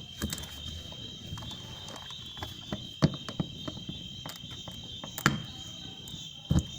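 A handful of sharp knocks and clicks from tools and parts being handled as the buffer is worked loose from a washing machine, the loudest about three, five and six and a half seconds in. Under them runs a steady high chirring of crickets.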